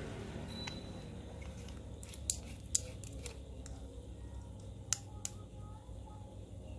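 Small handling noises with a few sharp clicks, spaced irregularly, as a freshly soldered 18650 battery cell is hooked up to test whether it still works.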